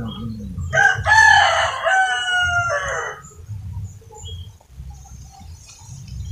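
A rooster crowing once, one long call of about two and a half seconds, starting just under a second in.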